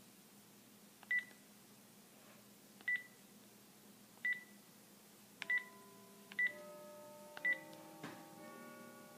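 Keypad of a Panasonic cordless phone handset being dialed: six key presses, each a click and a short high beep, spaced about one to two seconds apart. A sharper click follows near the end.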